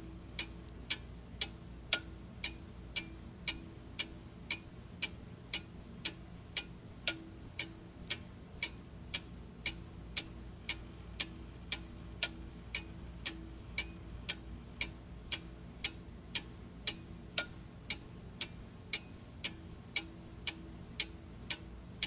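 Clock ticking steadily, about two ticks a second, over a faint steady hum.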